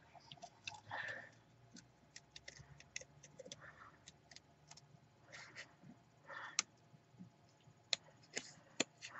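Small scissors fussy-cutting around a stamped ghost image in paper: faint, irregular snips with soft paper rustling, a few sharper snips near the end.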